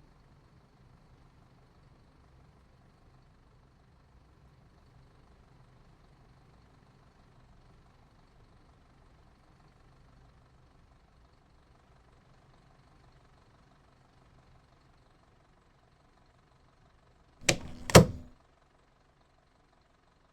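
A faint low hum fades away, then two sharp bangs about half a second apart near the end, the second the louder.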